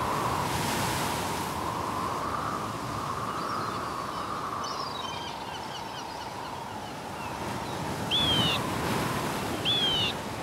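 Ocean surf breaking and washing up a sandy beach as a steady rush, with faint high chirps in the middle and a bird calling twice near the end.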